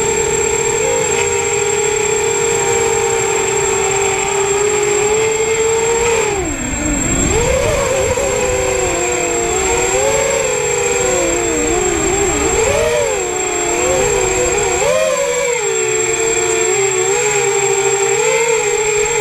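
FPV quadcopter's electric motors and propellers whining, close to the onboard camera. The pitch holds steady, dips sharply about six seconds in as the throttle drops, then wanders up and down with the throttle for the rest of the flight, over a thin steady high tone.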